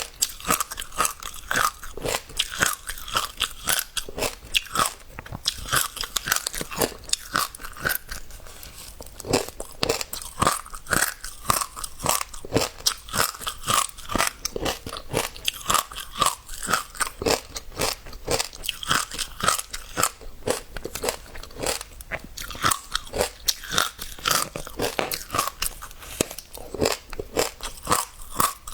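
Passionfruit seeds popping and crunching: a dense, irregular run of sharp crunchy clicks, several a second, with a brief lull about eight seconds in.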